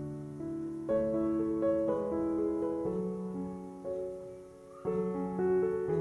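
Slow, gentle piano music: held notes and chords ringing on, with new ones struck about once a second.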